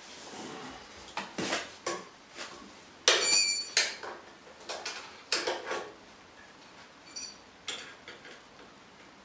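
Metal hand tools, pliers and a spanner, clinking and knocking against the steel lower mount of a moped's rear shock absorber as its bolt is fitted. A string of sharp metallic clinks at uneven intervals, the loudest about three seconds in with a brief ring.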